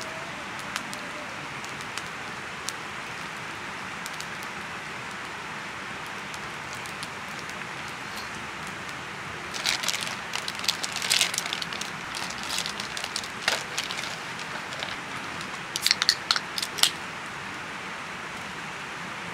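Wood campfire crackling steadily with an occasional small pop. From about ten seconds in, the plastic wrapping of a snack box is crinkled and opened, and near the end a few loud sharp clicks and rustles of the packaging.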